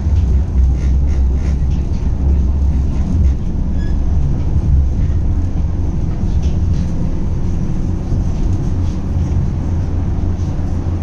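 Tram running along its rails, heard from inside the car: a steady low rumble with light clicks.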